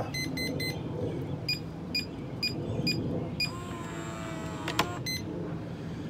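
Electronic keypad deadbolt beeping at each key press, about eight short beeps, then its motor whirring for just over a second as it throws the bolt, ending in a click and one more beep.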